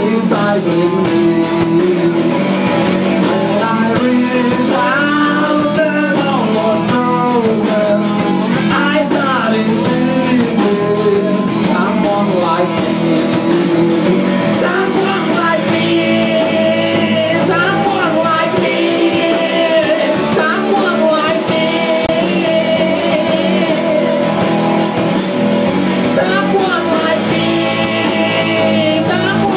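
Live rock band playing: electric guitars, bass guitar and drum kit with a steady cymbal beat, while a man sings the lead vocal.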